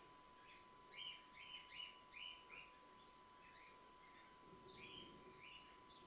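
Faint, short chirps of Gouldian finches: a quick run of about five between one and three seconds in, and a few more near the end, over a faint steady high hum.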